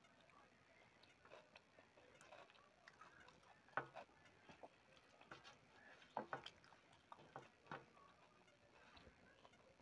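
Faint, scattered clicks and soft taps of fingers mixing rice and food on a metal plate while eating by hand. The sharpest clicks come about four seconds and six seconds in.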